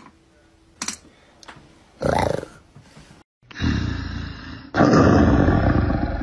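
Big-cat roar from the audio of TikTok's roar trend: a short roar that rises and falls about two seconds in, after a couple of sharp clicks. After a brief dropout, a second, longer roar comes in, growing louder about five seconds in.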